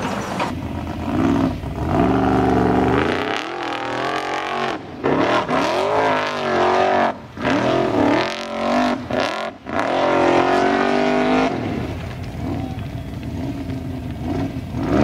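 Formula Offroad hill-climb buggy's engine revved hard in repeated rising bursts as it drives up a steep dirt slope, the revs cutting off sharply several times. Near the end it settles to a lower, steadier run.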